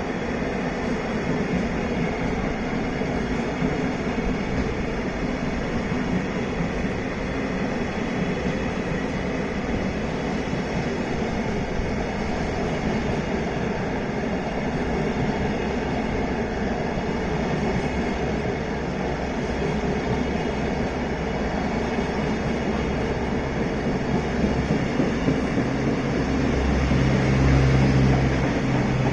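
Freight train of container flatcars rolling steadily past, a continuous rumble of steel wheels on the rails that grows louder near the end.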